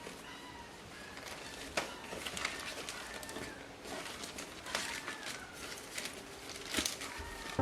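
A domestic cat meowing faintly now and then, with a few light clicks and knocks.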